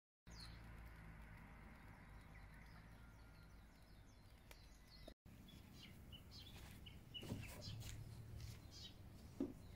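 Faint outdoor background with small birds chirping in short calls, and two quiet knocks, about seven and nine and a half seconds in.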